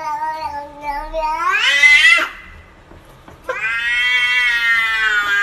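Domestic cat giving two long, drawn-out meows. The first rises in pitch at its end, about two seconds in. After a short gap the second starts, about three and a half seconds in, and holds steady.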